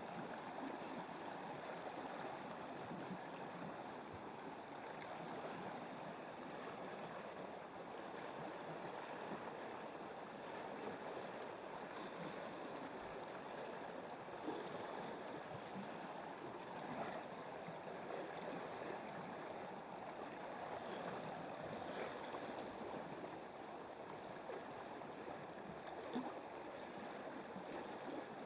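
River water flowing, a steady even rush with a few faint ticks.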